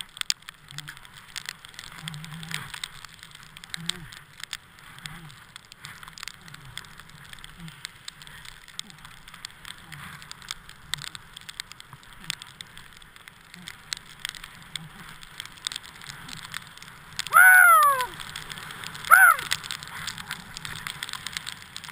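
Skis hissing and crackling through deep powder snow, heard from a helmet-mounted camera, with many small clicks and taps. About seventeen seconds in, a voice gives two loud whoops, each falling in pitch, under two seconds apart.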